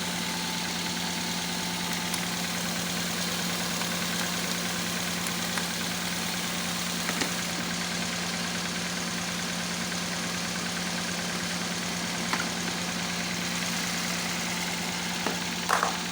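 Toyota Corolla's four-cylinder EFI engine idling steadily while misfiring, heard up close from the engine bay. There are a few light clicks, with a small cluster near the end.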